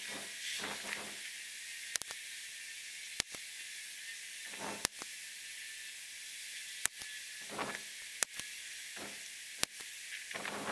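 Remington Airacobra .177 PCP air rifle being fired: about seven short, sharp cracks at uneven gaps of one to two seconds. Under them runs a steady hiss of heavy rain.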